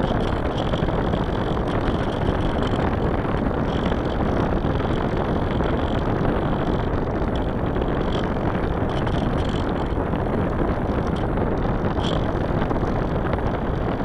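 Steady rushing noise of a small aircraft in flight: wind buffeting the onboard camera's microphone over the drone of its motor, even in level throughout.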